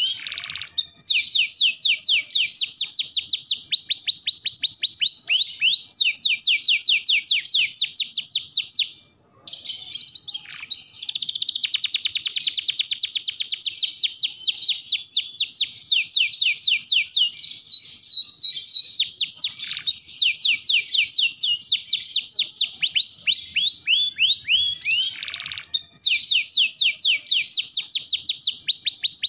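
Domestic canary singing a long song: fast trills of quick repeated notes, one run after another, with a brief pause about nine seconds in and a very fast trill just after it.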